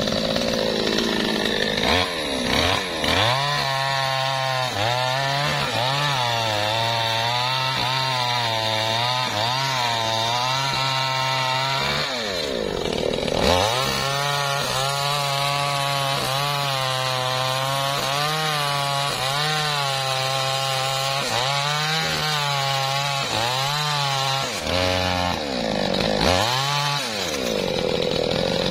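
Two-stroke chainsaw cutting into the trunk of a dead, dry teak tree, engine held high under load with its pitch wavering as the chain bites. A few times it eases off and revs back up, around 12 and 25 seconds in.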